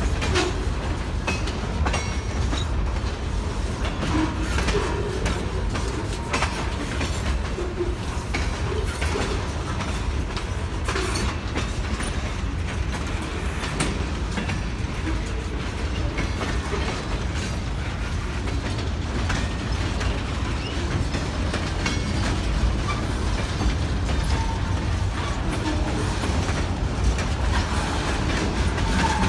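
Freight cars, tank cars and boxcars, rolling past on the track: a steady low rumble of wheels with repeated clicks and clanks as they cross rail joints.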